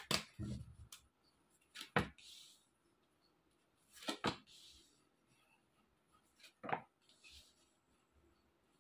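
Tarot cards handled by hand: a quick flurry of card clicks from shuffling, then cards snapped off the deck and laid down one at a time, a sharp snap about every two seconds, each followed by a short soft slide of the card onto the cloth.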